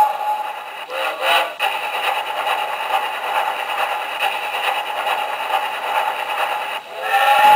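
Recorded steam locomotive sounds from a talking wall clock's small speaker. A steam whistle fades out about a second in, then comes a steady noisy rush and rattle of the running engine, and the steam whistle blows again near the end.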